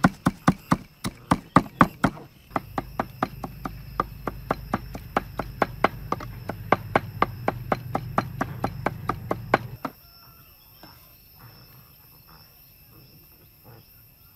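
Cleaver chopping shallots on a wooden cutting board, sharp knocks at about four strokes a second, stopping about ten seconds in. A faint steady insect drone carries on underneath.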